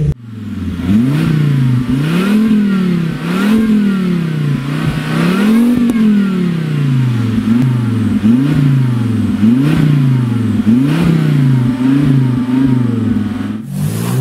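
Car engines with tuned aftermarket exhausts revved in repeated blips, each rising and falling in pitch. In the first half the revs are longer and higher; from about halfway they come shorter and even, roughly once a second.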